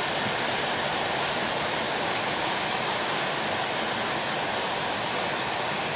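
Glacier-fed mountain river rushing over boulders: a steady, unbroken rush of white water.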